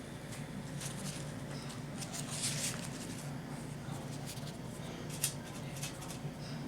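Faint rustling, scraping and small clicks of hands and tools working polymer clay, over a steady low hum, with one sharper click about five seconds in.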